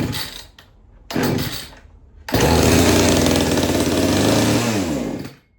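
Poulan two-stroke chainsaw with an opened-up muffler being drop-started cold: two short bursts as the starter cord is yanked, then it fires and runs loudly for about three seconds before dying, its pitch falling as it stops.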